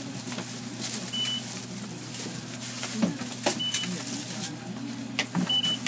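Bus engine idling with a steady low hum while passengers board. The card reader at the entrance gives a short high beep three times, irregularly spaced, as fare cards are tapped, among light knocks and footsteps.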